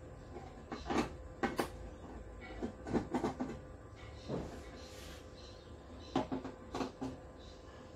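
Irregular small clicks and knocks of hands and a screwdriver working on the plastic back casing of a flat-screen TV, some in quick clusters.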